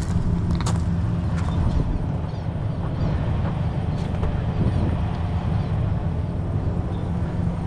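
Heavy diesel truck engine running steadily, with a few light clicks in the first couple of seconds.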